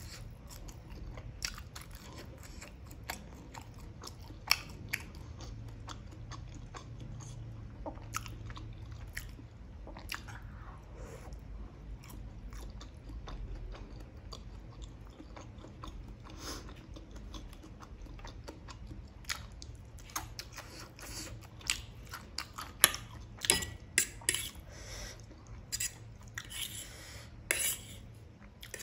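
Close-miked chewing and biting of a mouthful of fried food, wet and crunchy, with scattered small clicks. In the last third, a denser run of sharp clicks and taps of a fork against the plate.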